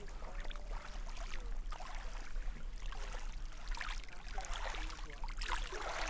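Small waves lapping and splashing at a lakeshore, a wash arriving every second or two with little gurgles between.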